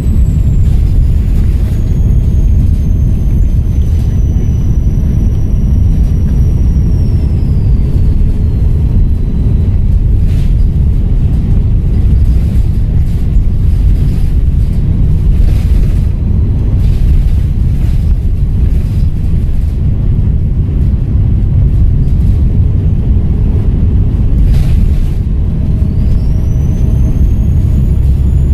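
Volvo B7RLE bus's turbo diesel engine running with a heavy low rumble. The turbo whistle falls steadily in pitch over the first several seconds as the turbo spools down, then rises again near the end as it spools back up. A few brief knocks come in between.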